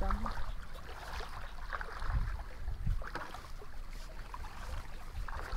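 Wind buffeting the microphone as a steady low rumble, with faint scattered rustles.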